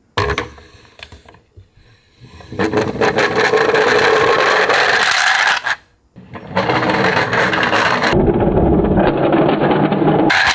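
Plastic wheels of a Playmobil toy garbage truck rolling on wooden boards, with a rumbling, rattling noise. A short knock comes just after the start, then two long runs of rolling of about three and four seconds.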